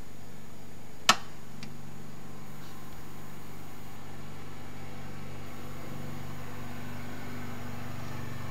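Steady low electrical hum with one sharp click about a second in and a couple of faint ticks after it.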